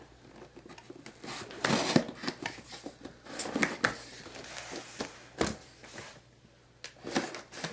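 A cardboard box being opened and handled: scattered rustles and scrapes with a few sharp knocks, quieter near the end.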